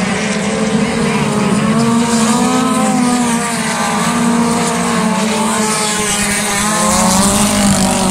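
Several modified race cars' engines running hard together around a dirt oval, their overlapping pitches rising and falling as the cars accelerate and lift through the turns. The sound grows a little louder near the end as two cars pass close.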